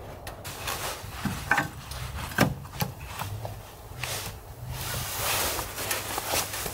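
Split firewood handled at a wood stove: a few light wooden knocks as pieces are moved and set down, then a longer rustle of leather work gloves rubbing against the wood.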